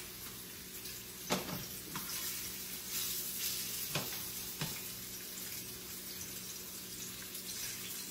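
Salmon chunks sizzling steadily in hot grapeseed oil in a frying pan, the hiss that shows the pan is hot enough for a good sear. A few light knocks sound over it, two around a second or two in and two more about four seconds in.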